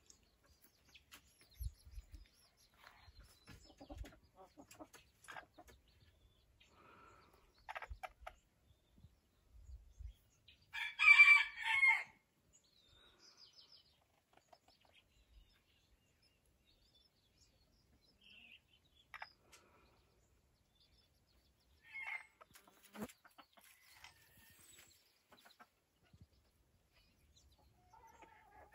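Chickens calling quietly and sporadically, with soft clucks from a brooding bantam hen and one loud call about eleven seconds in.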